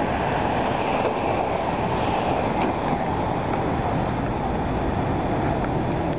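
Wind buffeting the microphone of a camera moving at cycling pace: a steady, low rushing noise.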